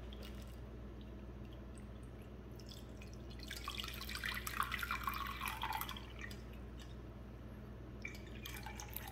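Dashi stock being poured from a saucepan into a ceramic pot, trickling and splashing. The pour is loudest from about three to six seconds in and picks up again near the end.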